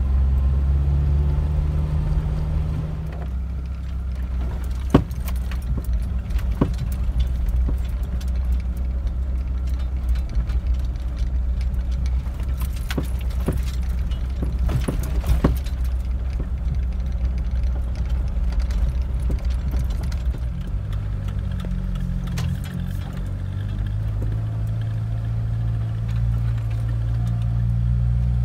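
Jeep driving slowly over a bumpy dirt trail, heard from inside the cabin: a steady low engine and road drone. Loose things in the cabin clink and rattle with the bumps, most often through the middle of the stretch.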